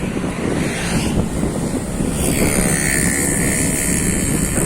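Heavy diesel machinery, an excavator loading a dump truck, running steadily under load. A high steady whine joins about two seconds in.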